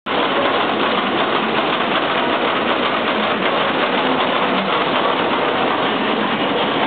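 Book-sewing machine running with a fast, steady mechanical clatter.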